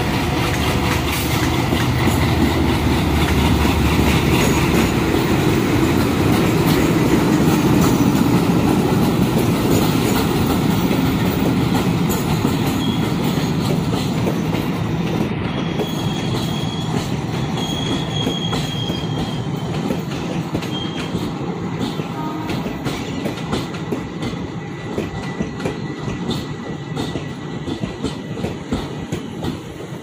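Twin ALCO WDG3A diesel locomotives pulling a passenger train past under power, their engines a heavy low rumble that grows to its loudest about a third of the way in and then fades. The rolling coaches follow with a clickety-clack of wheels over rail joints that stands out more in the second half.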